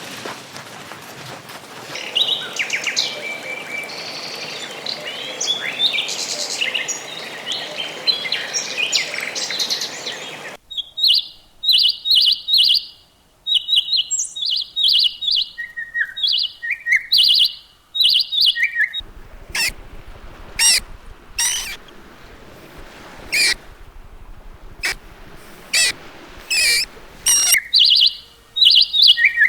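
Birds chirping and calling in short repeated notes. The sound runs as three separate stretches with abrupt changes about ten and nineteen seconds in: first chirps over a background hiss, then clean rapid chirps, then sharper calls.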